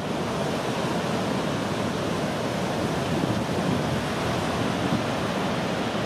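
Steady rush of waves breaking on a beach, an even noise with no engine or voices in it.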